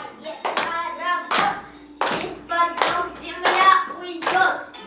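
Steady rhythmic hand clapping, about one and a half claps a second, with children's voices singing along in time.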